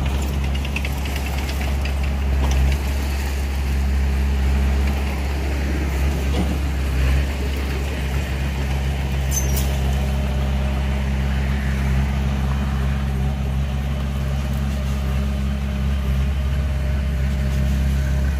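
Heavy diesel engine running with a steady low drone, as a loaded Hyundai 5-ton dump truck drives up and pulls onto the dirt near the end. A brief high-pitched hiss comes a little past halfway.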